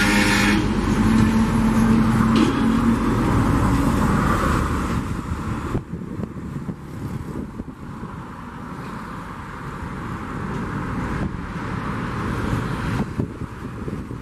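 Loaded mineral hopper cars of a freight train rolling past: a steady rumble of steel wheels on rail with a few sharp clanks. A low hum fades out in the first few seconds, and the rumble drops lower about six seconds in.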